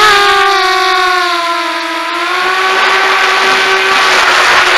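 Walkera Runner 250 quadcopter's brushless motors and propellers whining in flight over a rush of air noise. The whine slides down in pitch over the first couple of seconds, dipping briefly in loudness, then holds steady.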